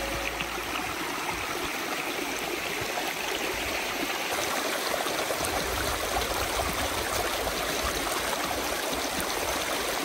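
Shallow creek running and trickling over rocks, a steady rush of water.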